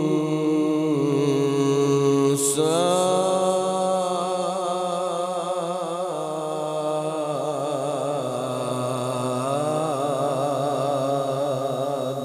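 A man reciting the Quran in the melodic tajweed style: long, drawn-out held phrases with a wavering, ornamented pitch. The pitch steps up to a higher note about two and a half seconds in.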